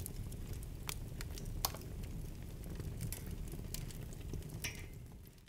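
Campfire crackling: irregular pops and snaps over a steady low rumble, fading away near the end.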